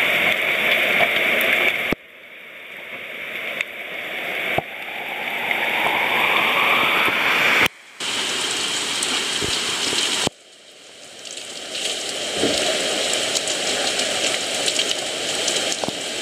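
Rain falling steadily, loud and close to the microphone, with drops striking it. The sound cuts out and restarts abruptly three times.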